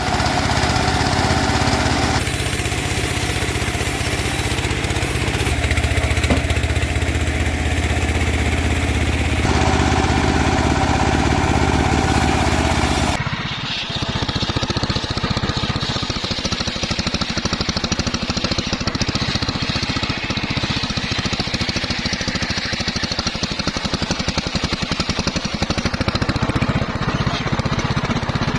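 Homemade band-saw mill running with a steady engine drone while sawing teak. The sound shifts every few seconds at first, then changes abruptly about thirteen seconds in and goes on with less hiss.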